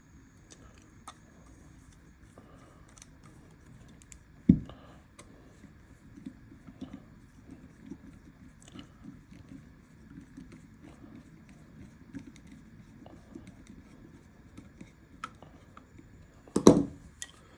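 Small metal clicks and scrapes of a Remington New Model Army cap-and-ball revolver's action parts being handled and fitted during reassembly, with two louder knocks, one about four seconds in and one near the end.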